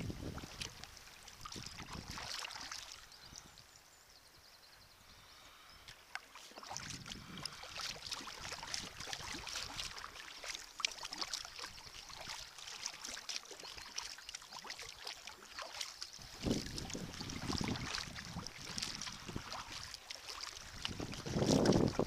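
Sea kayak paddling through a heavy shower: rain and hail pattering on the sea and the boat as a dense crackle, with gusts of wind buffeting the microphone about two-thirds of the way through and again near the end.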